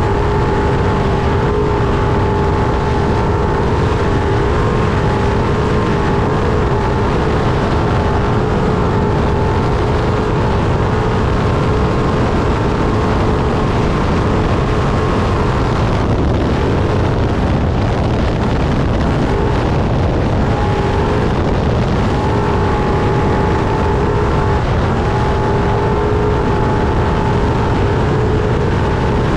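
Trophy truck's engine running hard at a steady high pitch, over a constant heavy rumble and rattle of the truck and wind, heard on board. About halfway through, the engine note drops away for a few seconds, then climbs back up and holds steady again.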